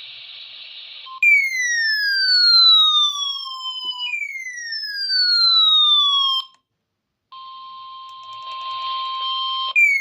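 Emergency alert tones on NOAA Weather Radio during a weekly EAS test. About a second of hiss gives way to two siren-like tones, each gliding down over about two and a half seconds. After a short gap comes a steady single-pitch alert tone over hiss, and a third falling glide starts at the very end.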